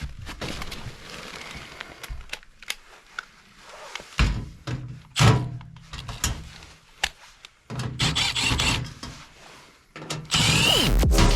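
A cordless drill-driver runs in short bursts amid sharp clicks and knocks of tool handling. Loud electronic music comes in near the end.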